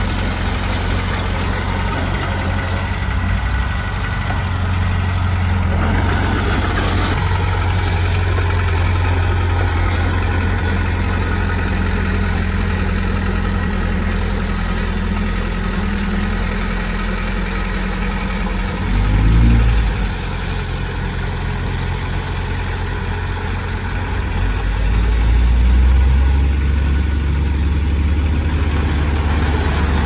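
Komatsu D20P bulldozer's diesel engine running steadily, revving up briefly about two-thirds of the way in, then growing louder and deeper near the end.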